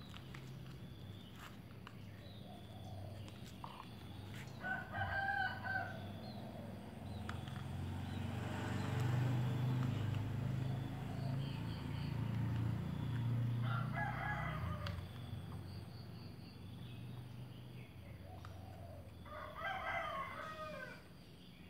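A rooster crowing three times, roughly five to six seconds apart, each crow lasting about a second and a half. Under it a low rumble swells and fades in the middle.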